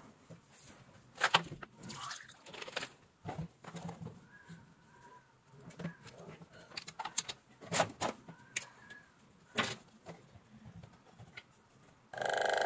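Clicks and knocks of a plastic tube and a small plastic air pump being handled. About twelve seconds in, the RS-081 aquarium air pump switches on with a sudden steady electromagnetic buzz: it is vibrating and pumping but delivers no air, the fault under repair.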